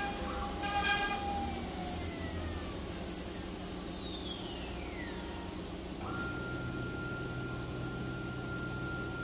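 ATC spindle of an Oryx GT5-2030Li-2.2 CNC router winding down, its whine falling steadily in pitch over about three and a half seconds, after a few short mechanical sounds near the start. About six seconds in, a steady high whine and a low hum switch on abruptly.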